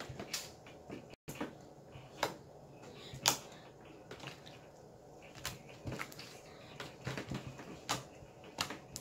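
Slime being squished and pressed in the hands, making irregular sticky clicks and pops.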